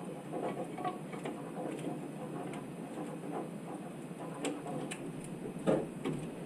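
Hand tools and small metal parts clicking and clinking irregularly during engine repair work, with a few sharper clicks in the second half.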